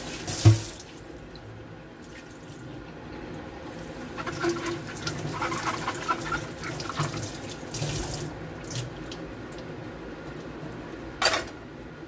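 Kitchen tap running into a stainless steel sink while a plastic container is rinsed, water splashing and the container clattering. There is a sharp knock about half a second in and another near the end.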